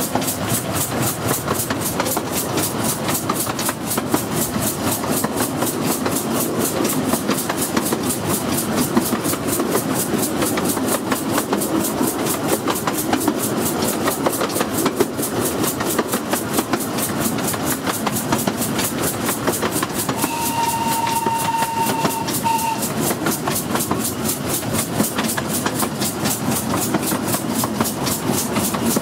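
15-inch gauge miniature steam locomotive running at speed, heard from the carriage behind: a quick even beat over the steady rattle of wheels on the track. About twenty seconds in, its whistle sounds once, held for about two seconds.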